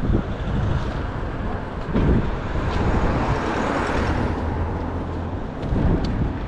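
Wind rumble on the microphone while riding an electric off-road Segway, mixed with road traffic. A passing vehicle swells and fades just past halfway through.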